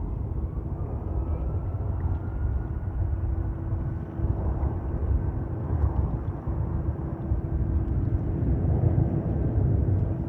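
Boeing 757-300 jet engines running: a steady, heavy rumble with a held hum and a faint higher tone that rises slightly in the first two seconds.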